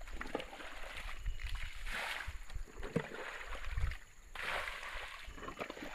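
Wet mud squelching and sloshing, coming and going in uneven spells, with a low rumble underneath.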